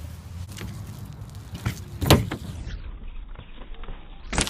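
A few dull knocks and clatters, the loudest about two seconds in and another near the end, over a low steady rumble.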